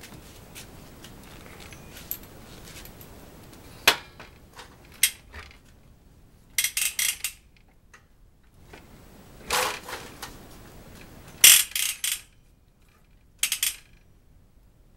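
Sharp metallic clicks, then short clusters of rattling clacks, four times in the second half, from the rear of a bicycle being handled.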